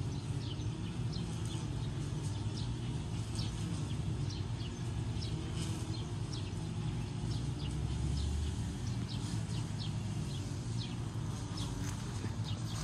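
Steady low hum of distant city traffic, with small birds chirping in short, high, downward-sliding calls scattered throughout.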